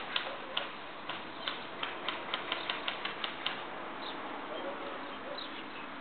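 Airsoft guns firing a run of single shots, sharp clicks spaced out at first and then quickening to about five a second, stopping about three and a half seconds in. Faint bird chirps follow.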